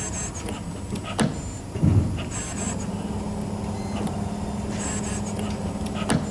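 CNC spring forming machine running its cycle on 1.8 mm wire, forming small torsion springs. Its motors whine in a cycle that repeats about every two and a half seconds over a steady hum, with two sharp clicks and a louder thump about two seconds in.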